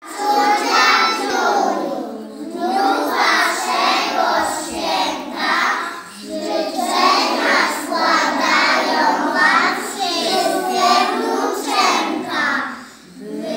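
A group of young children singing together in unison, in phrases a few seconds long with short breaks between them.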